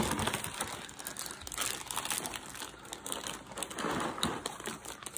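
Miniature schnauzer chewing a dog treat: a run of small, irregular crunches and clicks.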